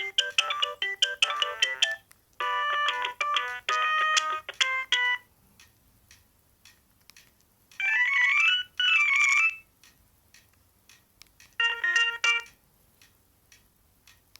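Alcatel OT-E256 mobile phone playing its ringtones one after another, each snippet cut off after a second or a few: two short electronic note-by-note melodies, a pause, then two rising swooping tones about eight seconds in, and a brief melody near the end.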